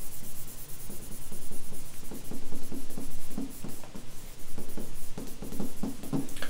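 Palm wiping across the glass of an interactive whiteboard screen to erase lines, giving a string of short, irregular squeaks and rubs, a few a second.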